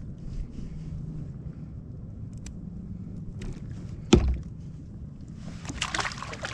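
Water splashing beside a fishing kayak as a small lingcod drops into the water next to the hull, near the end. A single sharp knock comes about four seconds in, over a low steady hum.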